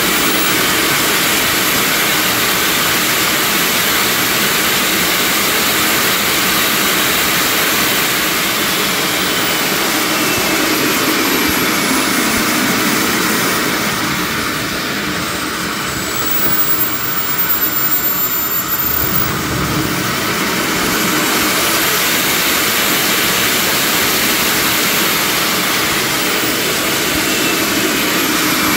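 KingTech K45G4+ model jet turbine running in an RC jet on a test stand: a loud, steady rush with a high whine. About ten seconds in the whine falls as the turbine spools down, the sound dips around the middle, then the whine climbs again as it spools back up.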